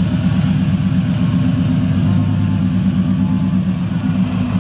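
Supercharged engine of a square-body Chevrolet C10 short-bed pickup running steadily with a low, pulsing exhaust note as the truck rolls away.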